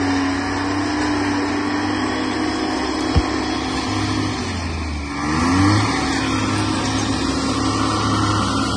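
Timberjack 230 skidder's diesel engine running steadily as the machine drives in close, revving up briefly a little past halfway. A single short thump about three seconds in.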